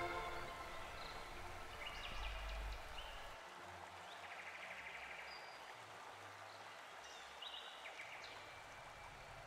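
Faint outdoor ambience: a soft steady hiss with a few brief, high bird chirps scattered through it.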